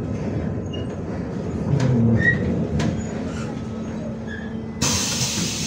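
Inside a MAZ-105 city bus, the diesel engine runs low and steady with a few faint clicks and rattles. About five seconds in, a sudden steady hiss of compressed air starts, from the pneumatic door system at the stop.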